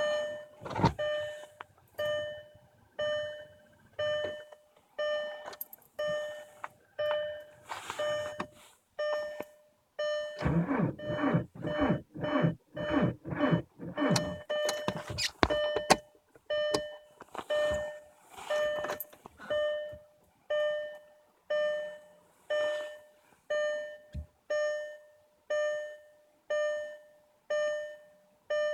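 A Volkswagen Jetta's warning chime dinging steadily about once a second, and from about ten seconds in the starter cranking the frozen TDI diesel for some five seconds in rapid, uneven chugs without it catching: the engine, unplugged overnight at about minus 40, is too cold to start.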